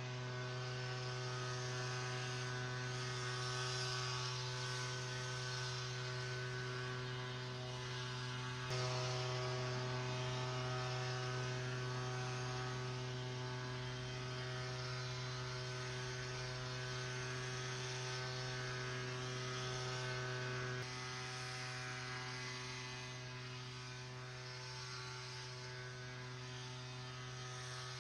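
Handheld gas leaf blower running steadily, a constant engine drone that gets a little louder about nine seconds in and drops back about twenty-one seconds in.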